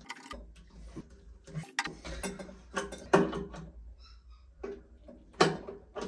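Irregular clicks and knocks of gloved hands handling and turning a metal angle stop valve and its compression fitting on a copper pipe, with two louder knocks about three seconds and five and a half seconds in.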